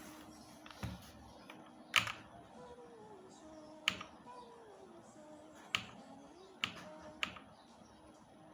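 Mechanical keyboard fitted with Akko V3 Cream Black Pro switches giving about six sharp, separate plastic clicks at uneven intervals, the loudest about two seconds in, over soft background music.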